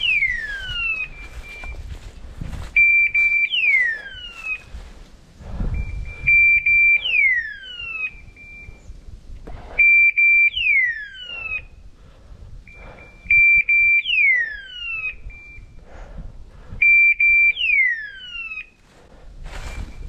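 Hunting dog's beeper collar in point mode: a steady high electronic beep followed by two falling hawk-screech sweeps, repeating about every three and a half seconds, the signal that the dog is standing on point.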